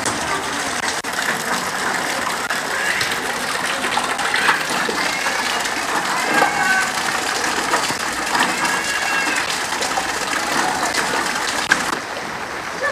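Steady rush of floodwater flowing through a street in the rain, with occasional splashes.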